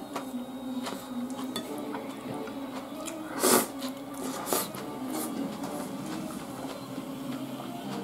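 Chopsticks clicking against a plate and eating noises, with a brief louder burst about three and a half seconds in as a bite goes into the mouth, over faint background music with steady low notes.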